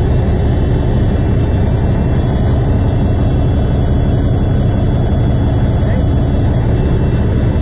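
A heavy engine running steadily nearby, a continuous low rumble.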